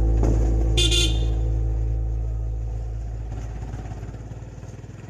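Motorcycle riding along with a steady low engine drone, and one short horn toot about a second in; the whole fades out toward the end.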